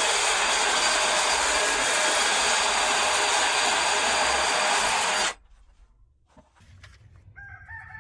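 A power tool running loudly and steadily at constant speed, then switched off, cutting out abruptly about five seconds in.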